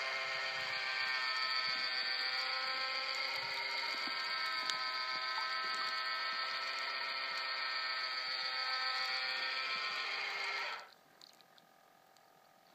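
Automatic pond fish feeder's electric motor running with a steady buzz while it throws out food, its pitch sagging slightly, then stopping abruptly about eleven seconds in as the timed feed ends.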